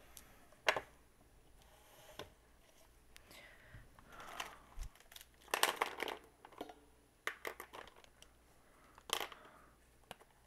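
Faint rustling of paper and light clicks and taps from hands handling things on a tabletop planner, with a busier run of rustles a little past halfway and another near the end.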